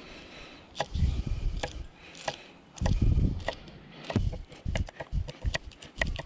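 Kitchen knife chopping chives on a wooden cutting board: a run of sharp taps of the blade striking the board, coming faster in the second half.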